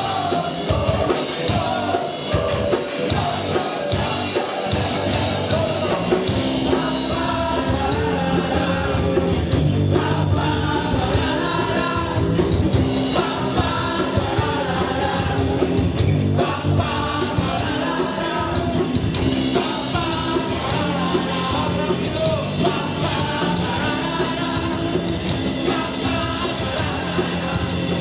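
Live rock band playing, with electric guitars, bass and drums under a male lead singer.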